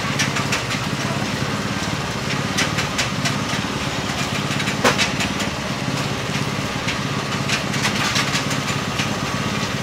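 A small engine running steadily at an even pitch, with scattered sharp clicks and taps over it, one louder tap about halfway through.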